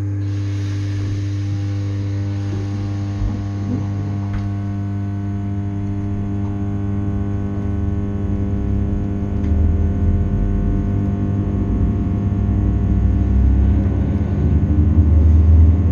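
Steady electrical hum in the saloon of a Class 321 electric multiple unit, with an even set of low tones. From about halfway a low rumble builds and grows louder as the train starts to pull away from the platform.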